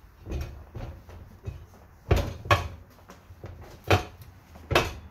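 Motorcycle tire knocking and thumping against its metal wheel rim on a manual tire changer as it is set on and pushed down by hand: a light knock about half a second in, then four sharp thumps in the second half.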